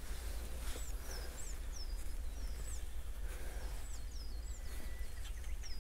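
A small bird singing outdoors: high, thin notes that slur downward, repeated in short phrases, over a steady low rumble.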